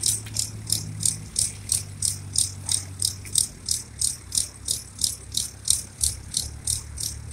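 Steady low engine hum from a water pump and tractor running nearby. Over it comes a sharp, high, rhythmic rattling tick about three times a second, the loudest sound throughout.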